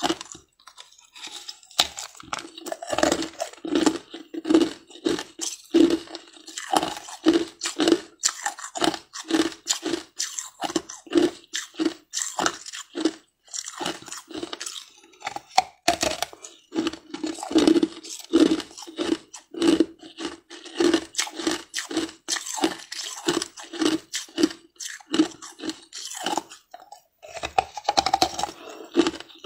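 A chunk of ice being bitten and crunched between the teeth, close to the microphone: a steady run of sharp crunches, about two a second.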